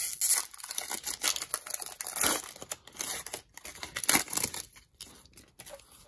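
Foil wrapper of a trading-card pack being torn open and crinkled by hand: irregular crackling and tearing that thins out about five seconds in.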